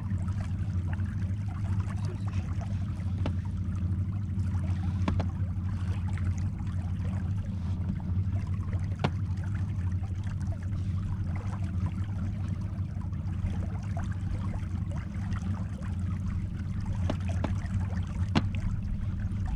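Boat motor running steadily with a low even hum, with water trickling along the inflatable boat's hull and a few light clicks.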